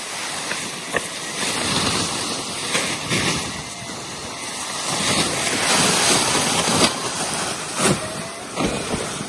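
Strong, gusty wind buffeting the microphone, rising and falling in surges, with a few short knocks.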